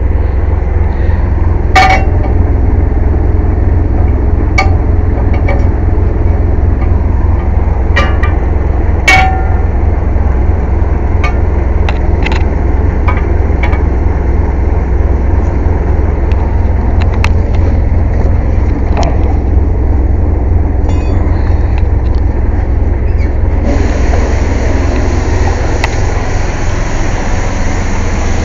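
Air compressor's engine running steadily with a loud low drone, with a few sharp clicks scattered through. About 23 seconds in, a steady hiss of compressed air starts and keeps going.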